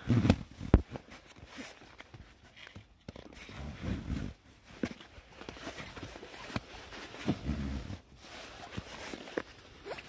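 Sleeping bag being compressed in its nylon Snugpak compression sack, the straps cinched tight by hand: rustling fabric with irregular knocks and bumps, loudest just at the start.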